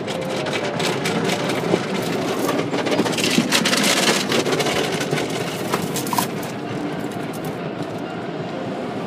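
Automatic car wash heard from inside the car: cloth wash strips slapping and rubbing over the windshield and body, with water spraying. The noise is dense with many quick slaps and swells loudest about three to four seconds in.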